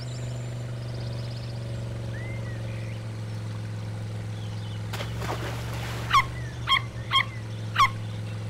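Steady low hum of the cartoon amphibious jeep's motor as it crosses the river. About two-thirds of the way in, four short high-pitched squeaks come about half a second apart, the calls of a baby otter.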